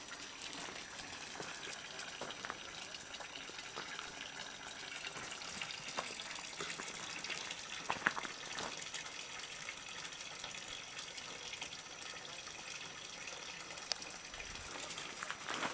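Steady rush of running water, with a few short clicks over it.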